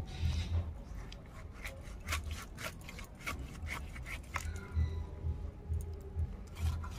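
Katla fish being cut into pieces on a bonti, the upright floor blade: scrapes and scattered short clicks as flesh and bone are pushed through the edge, thickest in the first few seconds.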